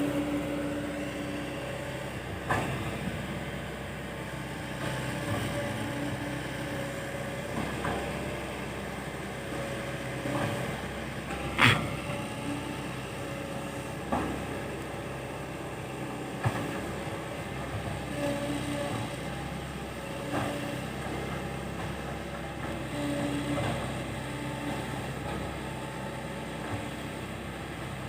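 Heavy excavator's diesel engine running steadily, with a whine that comes and goes and occasional sharp metallic knocks, the loudest about twelve seconds in.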